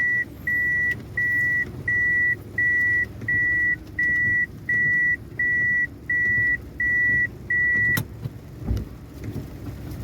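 Car warning chime: a single high beep repeating about one and a half times a second, which stops at a sharp click about eight seconds in. A vehicle engine runs low underneath.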